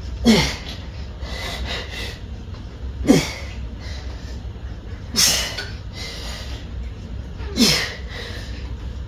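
A person's forceful exhale-grunts of exertion, four times about every two and a half seconds, each dropping in pitch, one with each rep of a single-arm cable pulldown.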